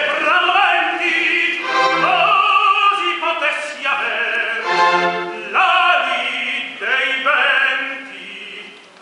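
Operatic tenor singing with an orchestra, in phrases with vibrato that break off every second or so. The music fades near the end.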